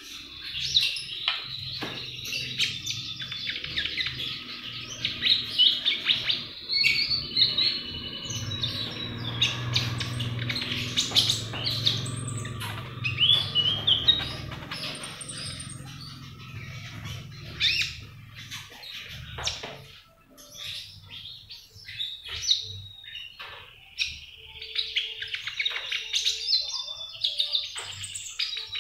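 Konin songbird twittering in quick, busy strings of high chirps, easing briefly about two-thirds of the way through before picking up again.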